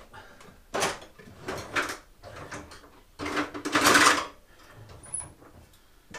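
Rummaging in a metal tool chest drawer: the drawer sliding and hand tools clattering in a few separate bursts, the loudest and longest, about a second of rattling, around three to four seconds in.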